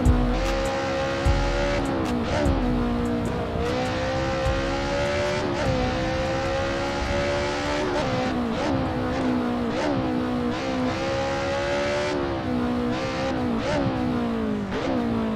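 BMW E30 M3 rally car's four-cylinder engine revving hard through the gears. Its pitch climbs steadily and then drops sharply at each gear change, about ten times.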